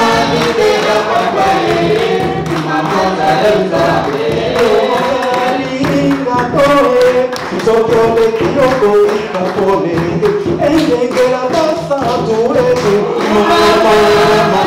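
A group of voices singing a worship song together, the melody moving steadily.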